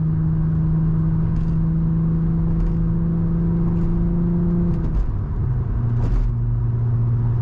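Car engine and road rumble heard while driving at road speed. The engine note holds steady and creeps up slightly, then drops to a lower pitch about five seconds in.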